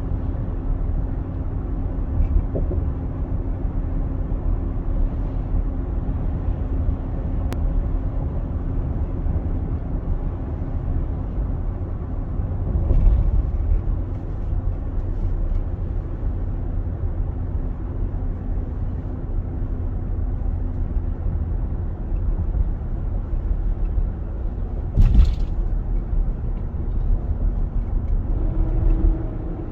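2021 Nissan Armada's 5.6-litre V8 engine running with a steady low rumble and a constant droning tone: the engine noise the owner finds unusually loud. The drone steps slightly higher near the end, and a single short knock comes about 25 seconds in.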